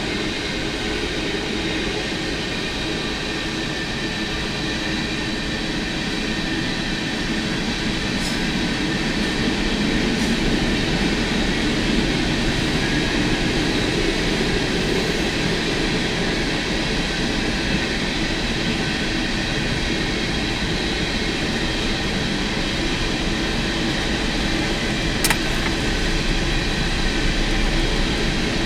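CSX freight train rolling past, a steady rumble of its cars and wheels on the rails with faint high wheel-squeal tones; a single sharp click comes near the end.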